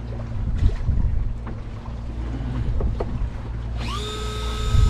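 Fishing boat's engine running with a steady low hum, with a few light knocks on deck. About four seconds in, a small motor whines up quickly and holds a steady high pitch.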